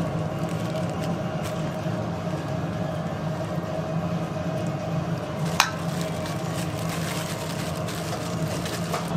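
Steady low machine hum of kitchen background noise, with faint soft handling sounds and one sharp click about five and a half seconds in.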